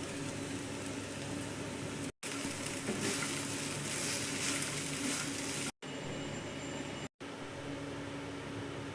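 Food sizzling in hot oil in a frying pan, strongest from about three seconds in to just under six, over a steady machine hum. The sound drops out abruptly for a moment three times.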